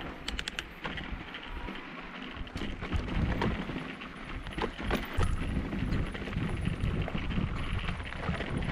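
Mountain bike rolling over a rough dirt singletrack: tyre noise and a low rumble, with frequent sharp clicks and rattles from the bike over bumps.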